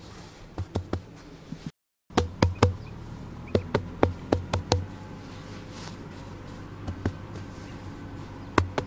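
Bare hands patting and pressing loose dry soil: a series of sharp slaps in quick clusters. The sound cuts out briefly about two seconds in.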